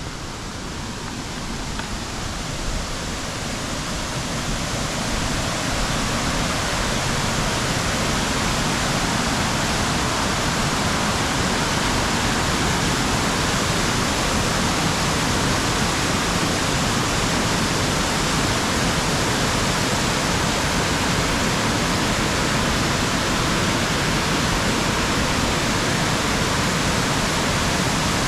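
Waterfall rushing steadily, growing louder over the first five seconds or so and then holding level.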